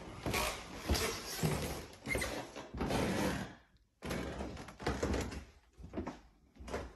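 Irregular door-like knocks, thuds and rustling. The sound breaks off suddenly just before four seconds in and starts again at once.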